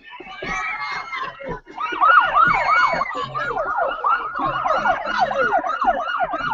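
Police siren on a fast yelp, starting about two seconds in: a quick run of falling wails, several a second, getting quicker as it goes.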